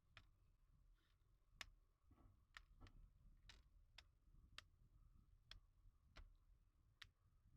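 Faint, sharp clicks, about ten at uneven spacing, the strongest about one and a half seconds in: small hard parts being handled during laptop work.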